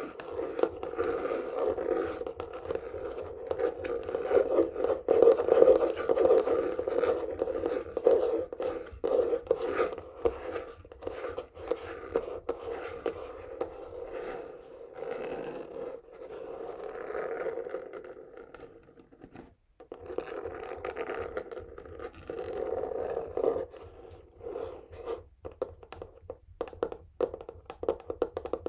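Fingernails scratching fast over a textured cardboard box in dense, continuous strokes. There is a brief lull a little past halfway, and the strokes become more separate in the last few seconds.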